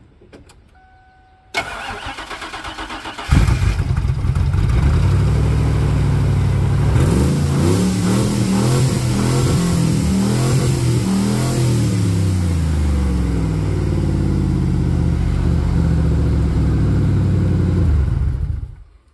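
Ford V8 engine cranked by its starter on a jump-pack boost, the battery being dead. After about two seconds of cranking it catches and runs loud, revving up and down, then shuts off near the end.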